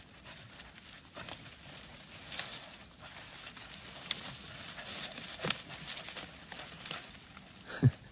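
Rustling, crunching and twig-snapping of movement through thick, snowy brush, in scattered sharp crackles, with one short cry near the end.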